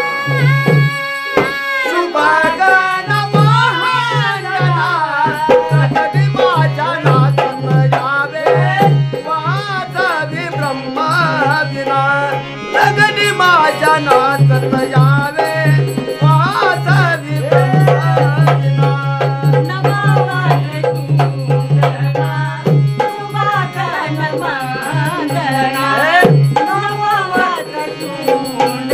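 Traditional Marathi tamasha gan, a devotional invocation to Ganesha, sung by male and female voices over hand-drum accompaniment and a low steady drone.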